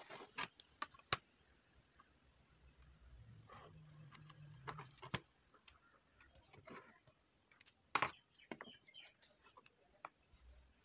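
Light clicks and taps of a clear plastic ruler being set down, slid and lifted on a card strip on a tabletop, the sharpest about a second in and again near eight seconds, over a faint steady high whine.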